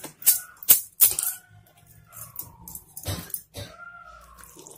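Wire whisk clinking against a stainless steel bowl three times while mixing flour batter, then a single knock about three seconds in. A faint animal whining, gliding up and down, comes twice in between.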